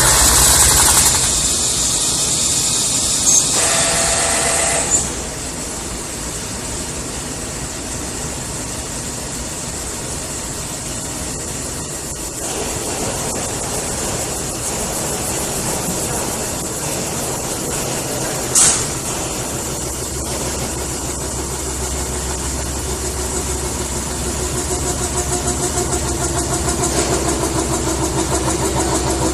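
CNC metal spinning machine running, with a steady mechanical noise and a high hiss. There are a few brief sharp high-pitched sounds, the clearest about eighteen seconds in, and a low droning tone that grows louder near the end.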